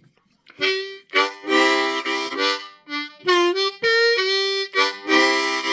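Seydel diatonic harmonica in C playing a short riff that mixes chords and single notes, starting about half a second in, with a brief break near the middle.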